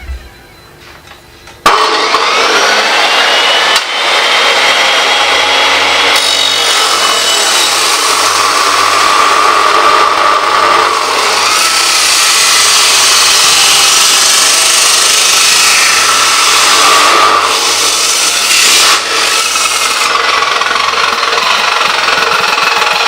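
Makita 2414NB 355 mm abrasive cut-off saw switched on about two seconds in with a rising whine, then its disc grinding through hollow steel tube with a loud, steady, harsh noise that dips briefly twice.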